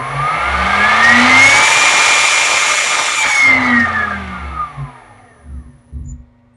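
Teknomotor 1.6 kW high-frequency CNC spindle, driven by a Delta VFD, spinning up with a rising whine over a rushing noise, running at full speed (rated 18,000 rpm) for about a second and a half, then winding down with a falling whine. A few low thumps near the end.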